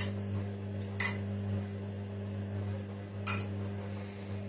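A metal utensil clinking a few times against a saucepan as runny caramel sauce is reheated, over a steady low hum.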